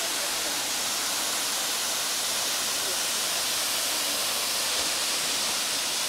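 A tall, narrow waterfall rushing steadily: an even, unbroken hiss of falling water.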